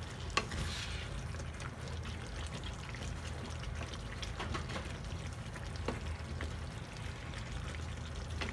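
Tomato sauce, thickened with cornstarch, simmering and bubbling in a pan as it is stirred. A few sharp clicks of the spoon against the pan are heard over a steady low hum.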